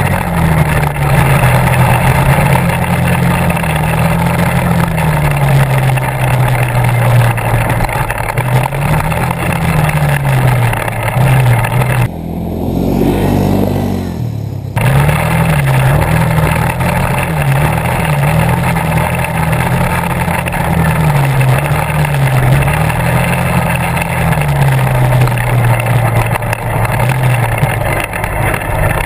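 ATV engine running under way, heard close from the machine itself, its pitch rising and falling over and over as the throttle is worked, over a steady hiss. About twelve seconds in, a quad is heard for a couple of seconds from beside the trail, its engine note sweeping as it goes by.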